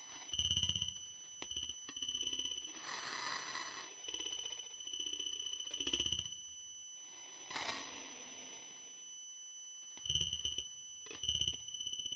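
Breath-like hisses and short low growling rumbles over a steady high-pitched whine. There are two longer breathy swells, about three and seven and a half seconds in, and low rumbles near the start, about six seconds in and twice after ten seconds.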